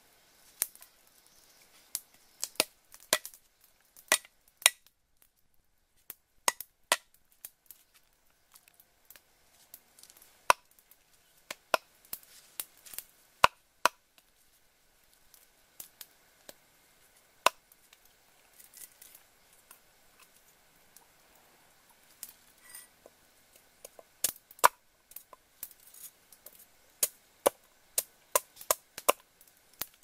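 Cleaver chopping on a round wooden chopping block: irregular sharp knocks in short runs with pauses between.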